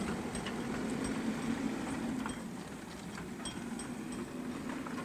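A motor vehicle's engine running steadily with a low, even hum, with a few faint clicks over it.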